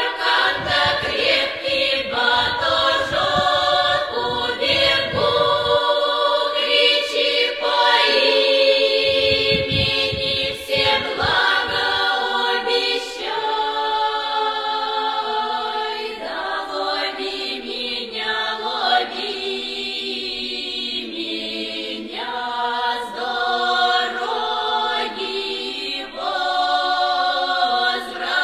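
Music: layered choir-like singing with no clear words, with low bass in the first six seconds and again from about nine to twelve seconds in.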